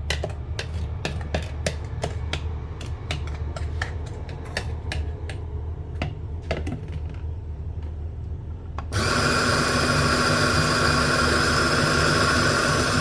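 Hard plastic and metal parts clicking and knocking as a Smeg coffee grinder is handled and fitted together. About nine seconds in, its motor switches on abruptly and runs loud and steady.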